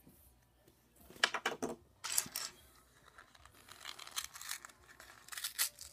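Small plastic Lego minifigure parts clicking and clattering as they are handled and pressed together, in short bunches of quick clicks about a second in, around two seconds in, and near the end.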